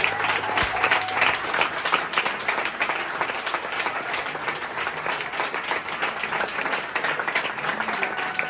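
Audience applauding: many hands clapping steadily together, with no music.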